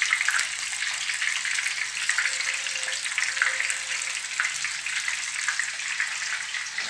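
Flour-coated fish pieces frying in hot oil in a frying pan: a steady sizzle with dense crackling.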